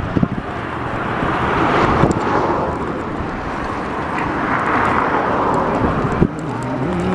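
Wind rushing over the microphone of a camera on a moving bicycle, with road traffic passing alongside; the rush swells about two seconds in and again near five seconds.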